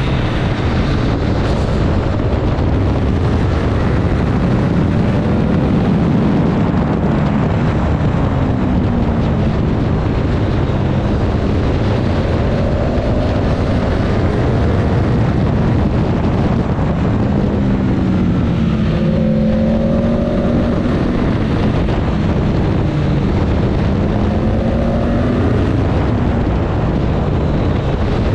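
2023 Triumph Street Triple 765 RS's three-cylinder engine at speed, its note rising and falling again and again under a steady rush of wind over the microphone.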